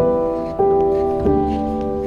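Background music: slow piano or keyboard chords, a new chord struck about every two-thirds of a second and left to ring.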